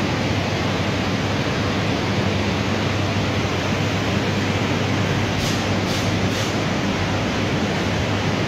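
Floor-drying blower units running steadily, forcing air through flexible ducting into drying mats laid over a flood-wet floor: an even rush of air over a low hum, with three faint short hisses about two-thirds of the way through.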